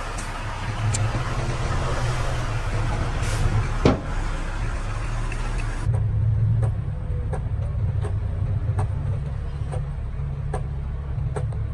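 Diesel engine of a heavy construction machine running steadily. A sharp knock comes about four seconds in, and light metallic clanks follow at irregular intervals in the second half.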